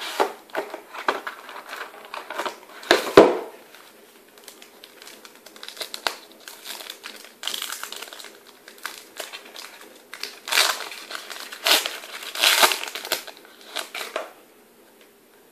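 A trading-card pack's plastic foil wrapper being crinkled and torn open by hand, in irregular crackling bursts with the loudest crackle about three seconds in. The crinkling stops about a second before the end.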